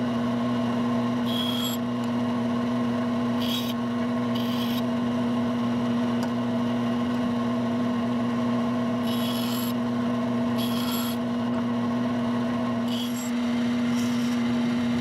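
Bandsaw running with a steady hum while its blade cuts the teeth of a small gear blank. Each tooth cut comes as a brief hiss, about seven scattered through the run.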